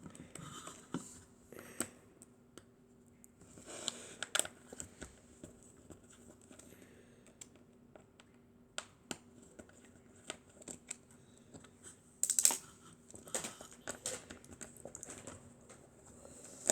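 Sporadic light clicks and taps of small hard objects being handled, with a louder rustling scrape about twelve seconds in, over a faint steady hum.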